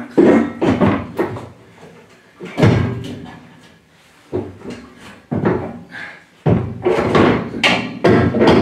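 Repeated clanks and knocks of steel roll-cage tubes being manoeuvred against the stripped car body shell, about nine separate hits, several with a brief metallic ring after them.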